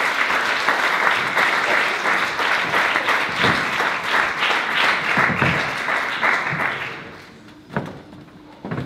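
Audience applauding, dying away about seven seconds in, followed by a couple of dull thumps near the end.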